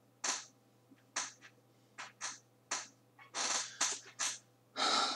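A brush swept in short quick strokes, about ten at roughly two a second, with a longer, louder stroke near the end.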